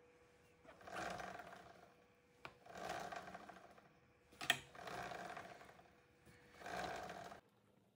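Drive chain of a BMW S1000R running over the rear sprocket as the rear wheel is turned on a paddock stand, in four surges about two seconds apart, with a sharp click about four and a half seconds in.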